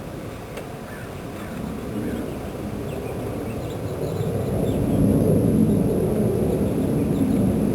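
Rumble of Blue Angels jet aircraft flying over at a distance. The deep noise swells over the first five seconds or so and then holds loud.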